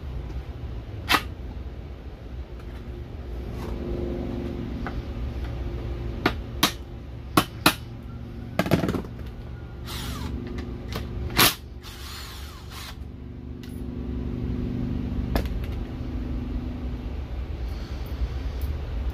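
Cordless power driver spinning bolts out of a transmission valve body in short runs of a couple of seconds each. Between the runs come sharp metal clicks and clinks of parts and tools being handled.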